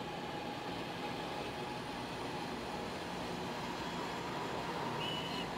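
Chinese CR Fuxing high-speed electric train rolling past a station platform: steady rolling noise with a steady whine, getting slightly louder, and a brief high squeal near the end.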